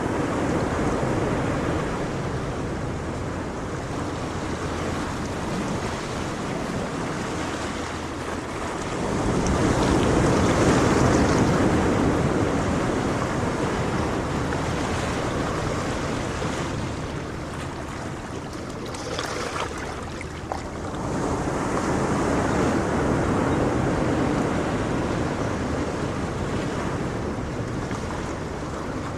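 Ocean surf: waves breaking and washing in a steady rush, swelling louder about a third of the way in, again about three quarters of the way through, and once more at the end.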